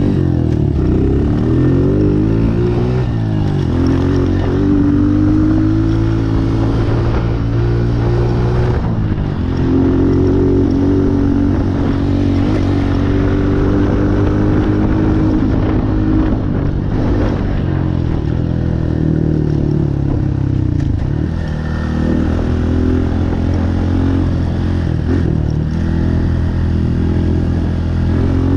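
Honda CRF125F big-wheel dirt bike's single-cylinder four-stroke engine running while being ridden, its pitch rising and falling repeatedly as the throttle is opened and eased off.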